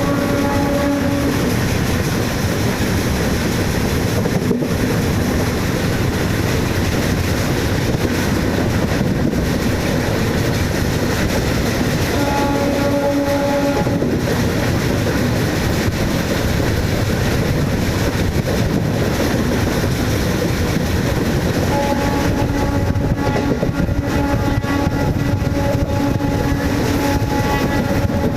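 Indian Railways MEMU electric train running with a steady rumble and rail clatter. Its air horn sounds in several blasts: briefly at the start, once for about a second and a half midway, and again in repeated blasts through the last six or seven seconds.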